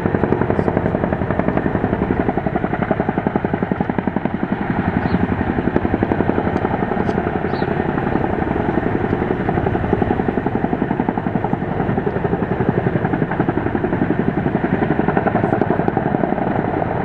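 CH-47 Chinook tandem-rotor helicopter flying low overhead, its two rotors giving a steady, rapid, even blade beat over the whine of its twin turbine engines.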